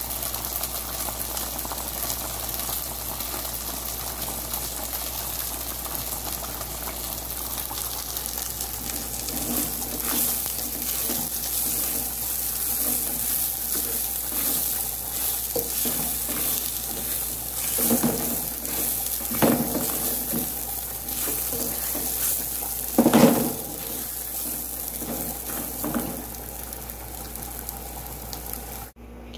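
Rice sizzling in hot oil in an aluminium pan while being stirred with a plastic spatula, with scattered scraping strokes and one louder knock about two-thirds of the way through.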